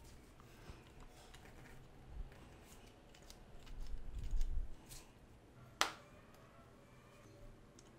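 Handling sounds of small parts being moved on an MDF board: light rubbing and scattered clicks, a low bump about halfway through, and one sharp tap a little later as a small wooden block is set down on the board.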